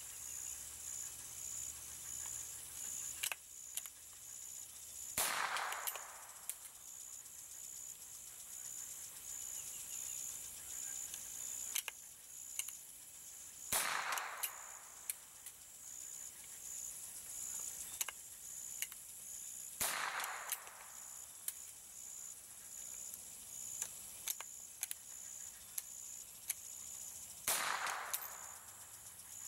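Four shots from a single-shot .22 LR bolt-action rifle, spaced roughly six to nine seconds apart, each with a short fading echo. Between shots come small metallic clicks as the bolt is worked and a new round is loaded by hand.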